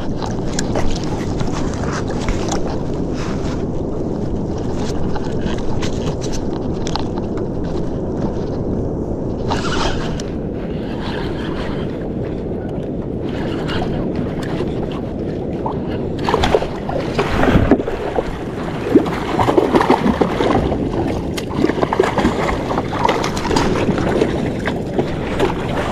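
Wind buffeting the microphone over water lapping against a plastic kayak hull. From about two-thirds of the way in come irregular splashes and knocks as a hooked fish is reeled up to the surface beside the kayak.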